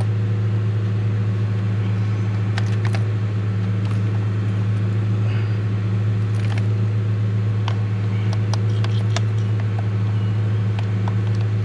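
A steady low hum from a running machine, with scattered light clicks and clinks from hand work on engine parts.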